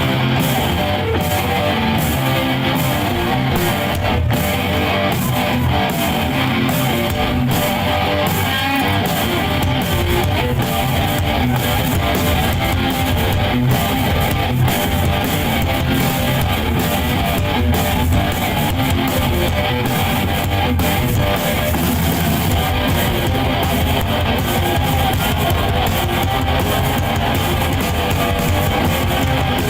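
A live rock band playing loud: electric guitar over drums and cymbals, with no singing.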